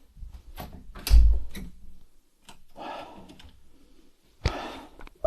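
A door being pushed shut, with a deep thud about a second in, followed by rattling and clicks from the door and its latch, and a sharp click near the end.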